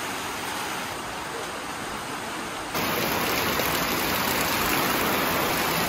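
Steady rain falling outside, a continuous even hiss that gets louder about three seconds in.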